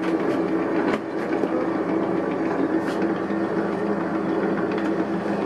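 Electric noodle and pastry-sheet roller machine (Getra DHH-180C) running steadily, its motor driving the steel rollers as a sheet of pastry dough is pressed flat between them. A light click about a second in.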